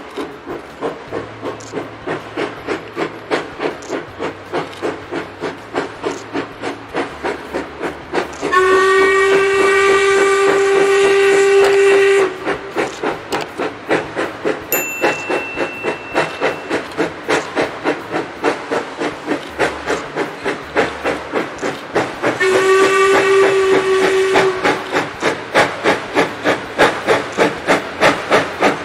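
Steam locomotive chuffing in an even beat of about two exhaust beats a second. It gives two long steady blasts on its steam whistle: the first about a third of the way in, lasting over three seconds, and a shorter one about two-thirds of the way in.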